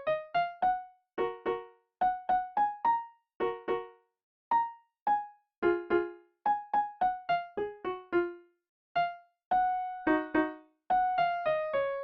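Background music: a light, bouncy tune of short, detached piano or electric-piano notes, some played as chords, with brief gaps between phrases.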